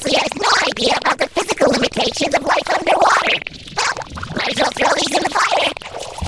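Cartoon character voices run through a 'B Major' audio effect: several pitch-shifted copies of the dialogue stacked into a harsh, warbling chord with a scratchy, buzzing edge.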